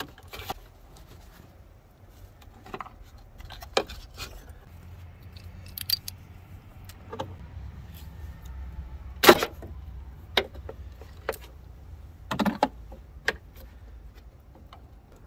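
Car battery being refitted: scattered metallic clinks and clicks of a socket ratchet and battery terminal hardware as they are worked and tightened, with two sharper clicks about nine and twelve seconds in.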